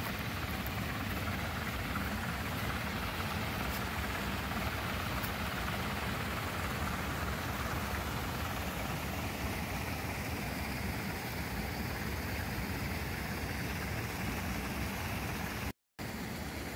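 Motor-driven water pump running steadily, its outlet pipe pouring a stream of water into a pond with continuous splashing.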